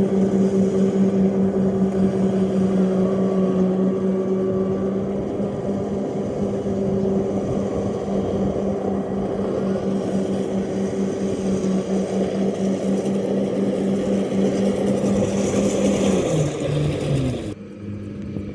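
Rice combine harvester running at a steady speed with a constant engine hum. Near the end its pitch falls in steps as it slows, and then the sound drops sharply.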